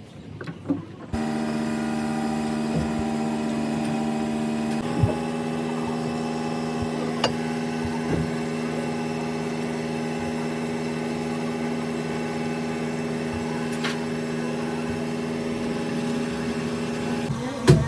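A steady mechanical hum, like a running motor or idling engine, starts abruptly about a second in and runs on, changing tone slightly about five seconds in, with a few light clicks over it.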